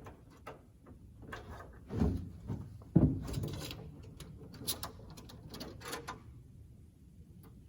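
Clicks and knocks of someone handling an open truck toolbox and its lid, with a dull thud about two seconds in, a sharp knock about a second later, and lighter clatter after that.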